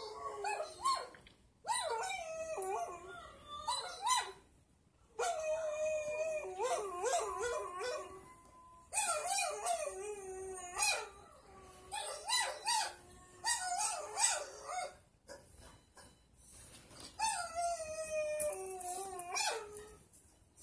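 Dogs howling and whining in repeated wavering bouts of one to three seconds, with short pauses between them; at times more than one voice overlaps.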